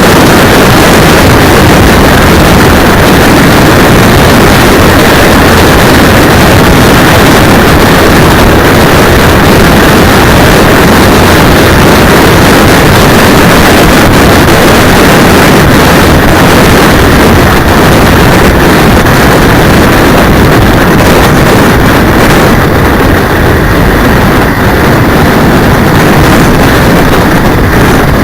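Wind and engine noise from a motorcycle ride picked up by a cheap 808 keychain camera's microphone mounted on the handlebar: a loud, steady, distorted rush of wind buffeting with the engine underneath. It eases a little near the end.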